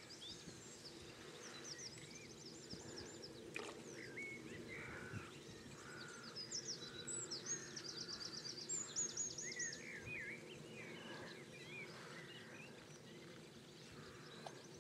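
Faint songbirds singing, with overlapping chirps and warbles and a quick run of repeated high notes starting about six seconds in and lasting some four seconds, over a steady low hum.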